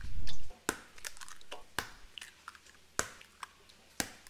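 Eggs being cracked one after another against a stainless steel mixing bowl and opened into it: a dull low thump at the start, then four sharp taps about a second apart.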